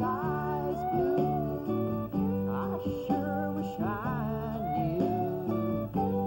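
Music: a song led by guitar, with a melody line that bends in pitch.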